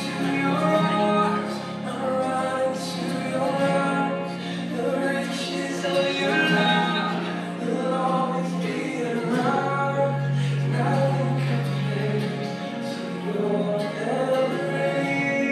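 Singing with instrumental accompaniment: a sung melody over long held bass notes that shift to a lower note about two-thirds of the way through.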